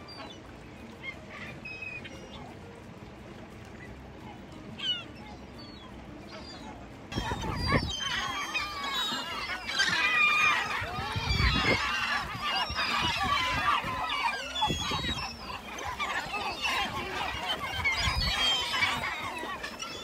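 A large flock of birds calling together, many short overlapping calls. The calls are scattered and quieter at first, then a loud, dense chorus starts abruptly about seven seconds in.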